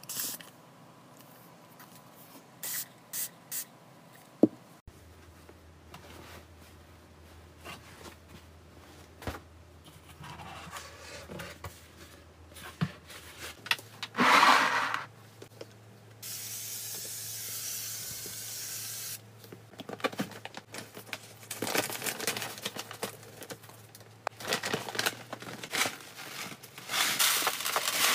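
Plastic cat litter box parts being handled: a few light clicks and one sharp knock, then repeated scraping and rubbing of plastic as the scratching-pad lid and the tray are slid and set in place. A steady hiss lasting about three seconds comes midway.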